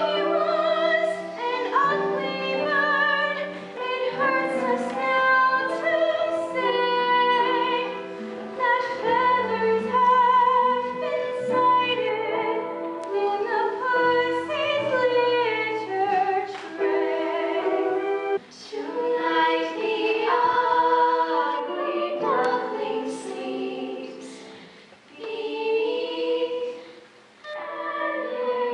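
Musical-theatre song: voices singing held, wavering notes over instrumental accompaniment, with short pauses between phrases near the end.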